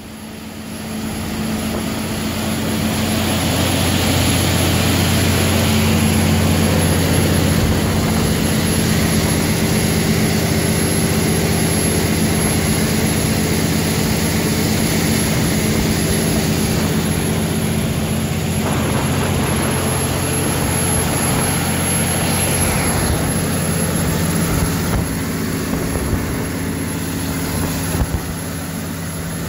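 Cummins N14 inline-six diesel engine of a 350 kW generator set running steadily under load during a load test, with a faint steady high whine above the engine note. The sound builds up over the first couple of seconds and then holds level.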